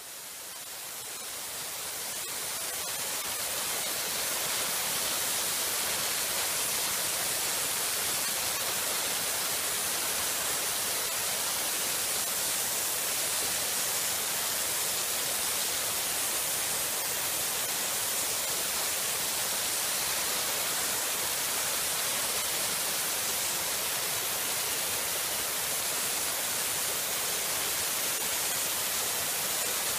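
Dry ice blasting gun with an extension tube, blasting compressed air and dry ice pellets against a hot casting mould to strip off release agent and contaminants. A steady hiss that swells over the first few seconds, then holds.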